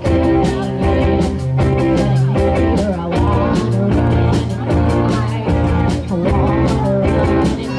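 A rock band playing live: a steady drum beat under bass and electric guitar, loud and continuous.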